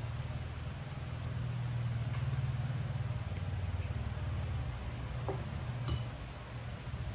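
A steady low hum, with a few faint clicks of a knife and fork on a plate near the end.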